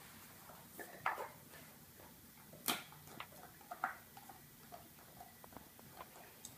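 Dog gnawing a hard chew treat: a series of short, irregular crunching clicks, faint overall, with the sharpest ones about a second in and near the middle.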